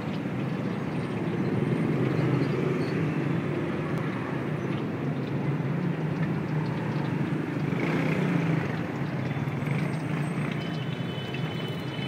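Steady low rumble of street traffic, with a few faint clicks of metal tongs against a metal pot.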